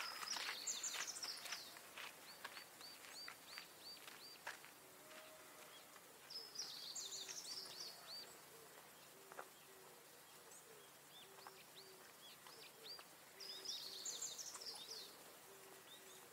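Wild birds singing in open country: a short high warbling phrase comes back about every six to seven seconds, with a run of quick falling chirps in between. Footsteps on gravelly grass fade away in the first couple of seconds as the walker moves off.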